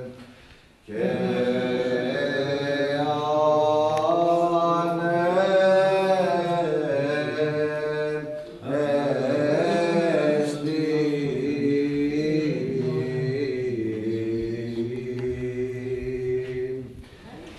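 Byzantine chant: a solo vocal line in slow, gliding melismas over a steady held drone note (the ison). It comes in two long phrases, with a brief break about eight and a half seconds in.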